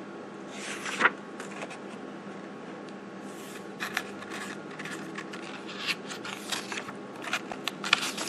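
Pages of a book being handled and turned: paper rustling and sliding in short strokes, the loudest about a second in, over a faint steady hum.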